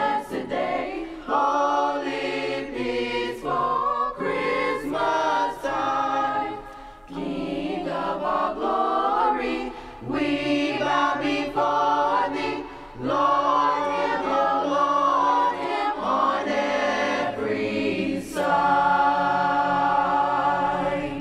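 Choir singing a Christmas carol in several voice parts, phrase by phrase, closing on a long held chord near the end.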